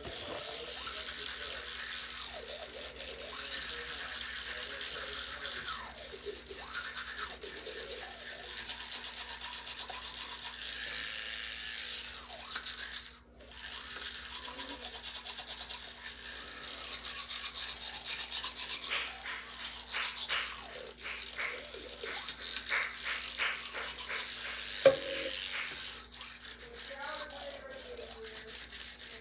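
Children's electric toothbrush running with a steady low hum while brushing teeth, with a wet scrubbing noise that comes and goes as the head moves over the teeth. A single sharp knock near the end.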